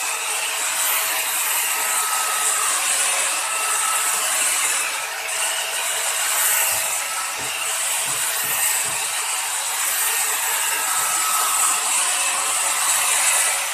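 An angle grinder with a thin disc runs steadily, grinding the steel knife of a wood planer's cutterhead to sharpen it: a constant motor whine with a hiss of abrasive on steel.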